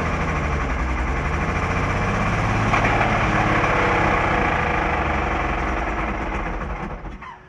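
An old excavator's diesel engine running rough, its pitch wavering, then dying away in the last second or so. It choked out, which the owner puts down to a stuck-open injector or the pump sending too much fuel, hydrolocking the engine with fuel.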